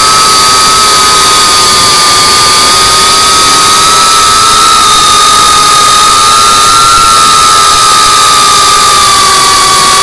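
FPV quadcopter's electric motors and propellers whining at a steady high pitch that wavers slightly with the throttle, heard close up from the craft's onboard camera.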